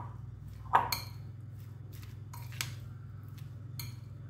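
A steel spoon clinking and scraping against a glass mixing bowl while stirring a grated paneer mixture: five or so sharp clinks, the loudest about three-quarters of a second in.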